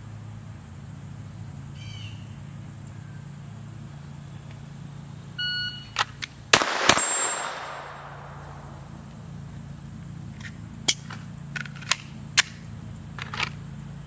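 An electronic shot timer beeps once. About a second later a Glock 44 .22 LR pistol, drawn from the holster, fires two quick shots roughly a third of a second apart, with a short echo. A few light clicks follow.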